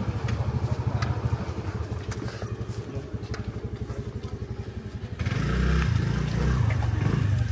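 Motorcycle engine running close by with a rapid, even low beat, getting louder about five seconds in.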